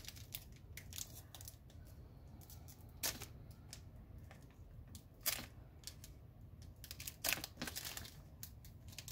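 Foil booster-pack wrapper crackling and clicking between fingers as its tightly glued seam is picked at: a few sharp crinkles a couple of seconds apart over a faint low hum.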